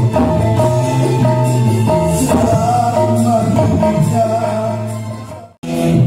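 Live band of keyboard, electric guitars and kendang hand drums played loud through a PA sound system, with a male singer on the microphone. About five and a half seconds in, the sound fades and cuts out for a moment, then the music resumes.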